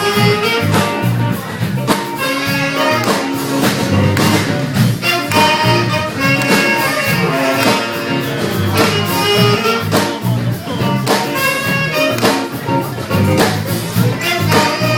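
Small jazz band playing live: melody lines over a steady beat.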